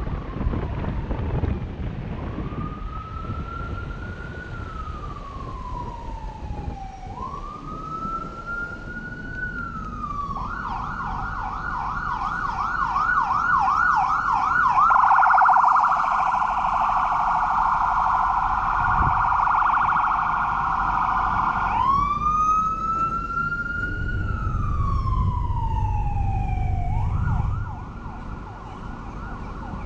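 Electronic emergency-vehicle siren, loud, cycling through its modes: a slow rising-and-falling wail, switching to a fast yelp about ten seconds in, then a still faster warble, back to the wail a little after twenty seconds, and to the yelp again near the end. Car road noise runs underneath.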